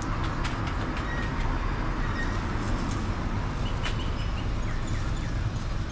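Street ambience: a steady low rumble of traffic, with a few light clicks and faint high chirps.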